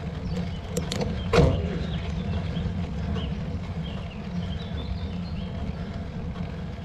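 Steady low rumble of wind and road noise while riding a bicycle, with a few sharp clicks about a second in, the loudest one ringing briefly.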